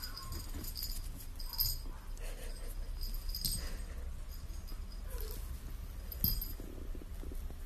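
A young kitten giving a few faint, whimpering mews over a low handling rumble, with a few sharp light clicks, the loudest about a second and a half in and again near the end.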